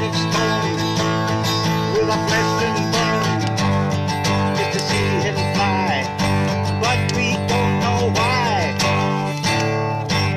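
Acoustic guitar strummed in chords, with a man singing along.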